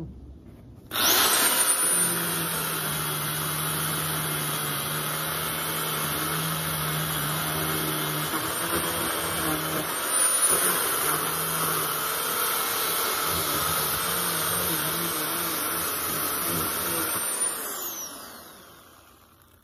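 Sun Joe electric pole chainsaw starting about a second in and running steadily as it cuts through a tree trunk, then winding down near the end.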